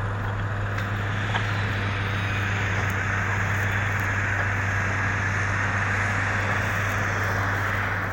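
A steady low machine hum with a rushing hiss on top that swells through the middle and eases near the end.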